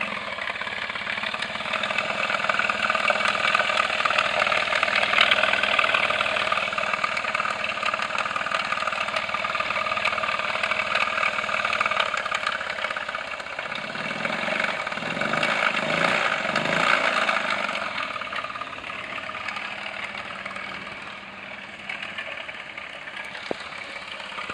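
Honda Zoomer's 49cc four-stroke single-cylinder engine running with its variator removed, its level swelling and easing over several seconds. It makes a strange noise from inside the engine, which the owner has been told may be a worn big-end bearing.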